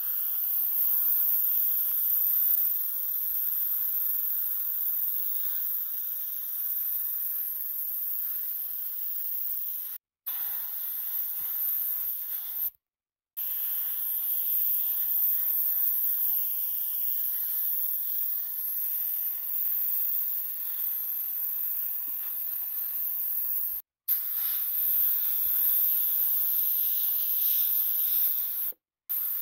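Steady high hissing noise, broken off abruptly by several short cuts.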